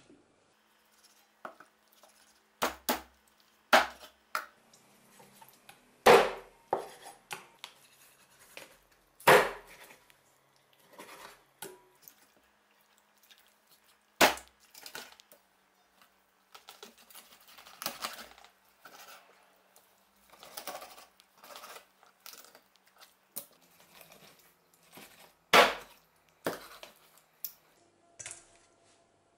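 Heavy meat cleaver chopping through a raw chicken, bone included, onto a wooden cutting board: a series of sharp chops at irregular intervals, several of them hard blows, with quieter knocks and handling sounds between.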